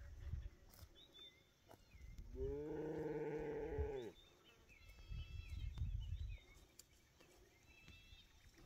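A single long, drawn-out call about two seconds in, held for nearly two seconds, rising in pitch at the start and falling away at the end. Birds chirp in the background before and after it.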